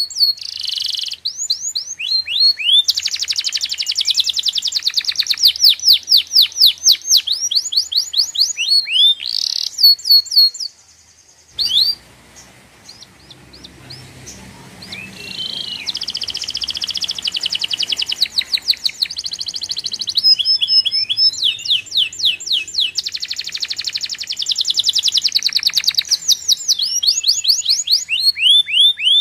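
Bird song: loud, rapid chirps and trills repeated in quick series, with a short break about eleven seconds in.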